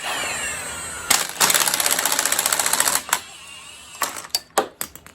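Impact wrench spinning up, then rapidly hammering for about two seconds while it breaks a bolt loose on an engine. A few sharp metal clicks follow near the end.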